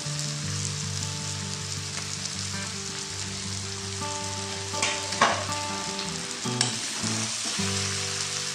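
Chowmein noodles with cabbage and carrot sizzling in a metal wok as they are stirred and tossed with a steel spatula, with a few sharp clinks of the spatula on the pan around five seconds in and again a little later.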